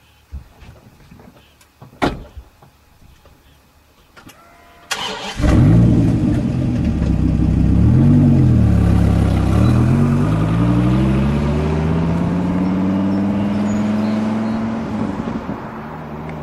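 A car engine cranks and catches about five seconds in, after a couple of short knocks. It revs once, then runs with a pitch that climbs slowly and then holds.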